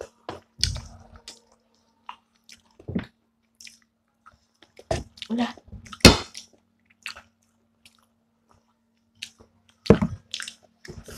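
Chewing and biting on chicken feet: short, irregular mouth sounds, with one louder sharp sound about six seconds in.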